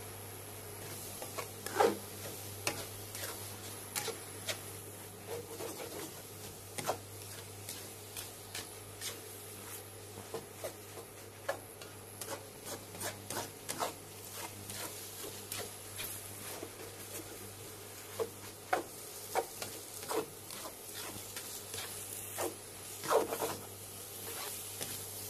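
A black spatula scraping and knocking against a stainless honeycomb wok while rice vermicelli and cabbage are stir-fried, in irregular strokes. The loudest knocks come about two seconds in and near the end.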